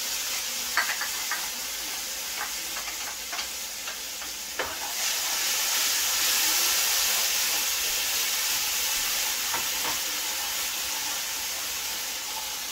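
Onion and butternut squash sizzling in hot oil in a steel pot, with a few clicks and scrapes of a wooden spoon stirring in the first few seconds. The sizzle grows louder about five seconds in.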